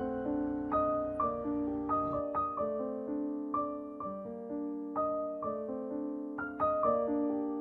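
Slow background piano music, single notes and chords struck about twice a second and left to ring.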